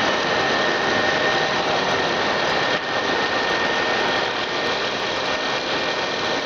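Rice processing machine running steadily, a dense mechanical noise with a constant high whine.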